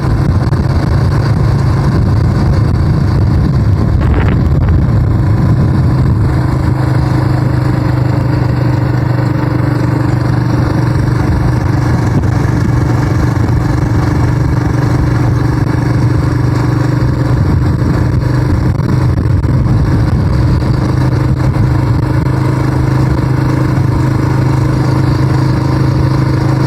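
Suzuki vehicle's engine running steadily while under way, a constant low drone with rough noise underneath.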